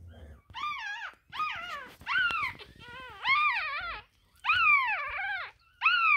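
A one-week-old Russian Toy puppy crying in a series of about seven high-pitched squealing cries, each wavering up and down and lasting under a second. It is the hungry crying of a newborn puppy wanting to nurse.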